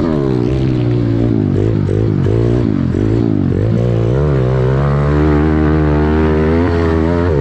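Pit bike's small single-cylinder four-stroke engine revving up and down in quick throttle blips, then holding steadier revs from about four seconds in.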